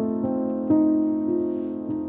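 Background piano music: a few single notes struck over held chords.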